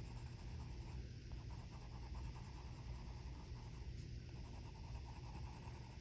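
Crayola colored pencil scratching across coloring-book paper in continuous shading strokes, a faint scratchy sound that shows the pencil dragging rather than gliding on this paper.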